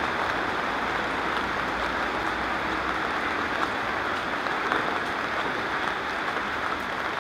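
Steady rain falling on a wet city street, an even hiss with faint scattered ticks of drops.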